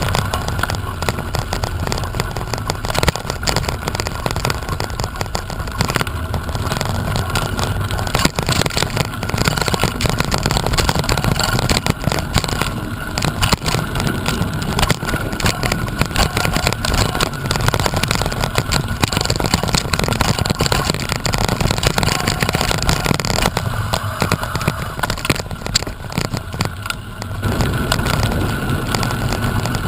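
Wind buffeting the microphone during a ride: a loud, continuous rumbling hiss with a faint steady tone running through it.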